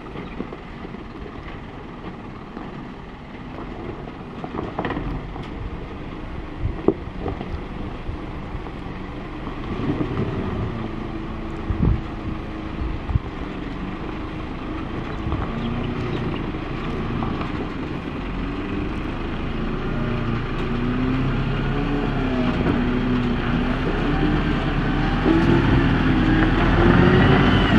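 Isuzu NPS 75-155 4x4 truck's turbo-diesel engine running slowly on a steep rocky track, held back by its exhaust brake on the descent, with a few sharp knocks from the rocks. The engine note grows louder and more prominent through the second half.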